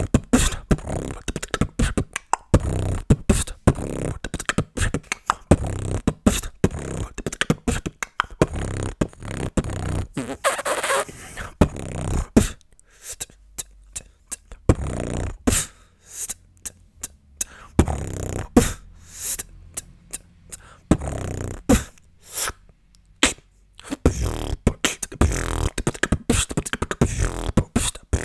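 Freestyle beatboxing: fast mouth percussion of deep thumps and sharp clicks. About twelve seconds in the pattern thins to sparser, spaced-out hits for roughly ten seconds, then fills out again.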